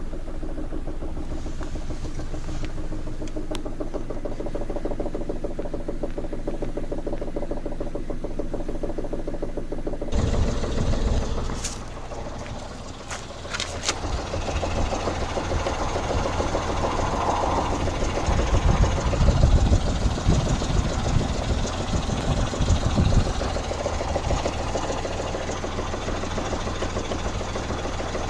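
Suzuki Alto HA24S's 660 cc three-cylinder engine running at idle with a rhythmic knocking clatter, the unexplained 'kotokoto' noise the owner hears at idle. About ten seconds in the sound gets fuller and louder, with a few sharp clicks and louder swells after that.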